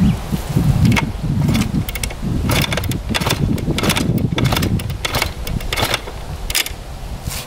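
Irregular clicks, clunks and rattles from a 1998 Kawasaki KX125 dirt bike being handled by hand, with its engine not running, over a low uneven rumble.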